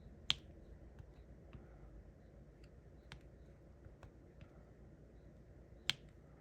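Light taps and clicks of a diamond-painting drill pen placing resin drills onto the canvas, with two sharper clicks, one just after the start and one near the end.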